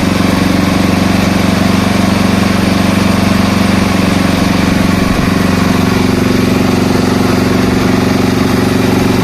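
A motor running steadily with a constant low hum, with a slight change about five seconds in.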